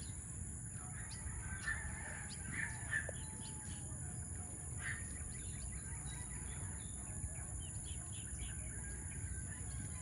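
Faint, scattered chirps and calls of small birds, over a low steady rumble and a thin, steady high hiss.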